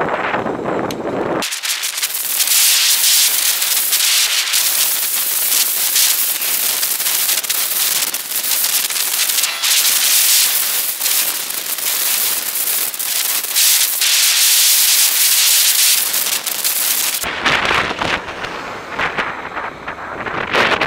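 Dense, scratchy rubbing noise on the helmet camera's microphone, high-pitched and thin. It starts suddenly about a second and a half in and stops just as suddenly near the end, where ordinary riding wind noise comes back.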